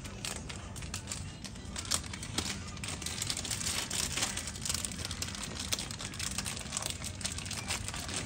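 Packaging crinkling and rustling as it is handled, a dense run of small irregular crackles over a steady low hum.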